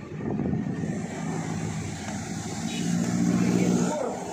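A motor vehicle's engine running steadily with road noise, its hum growing louder for about a second near the end.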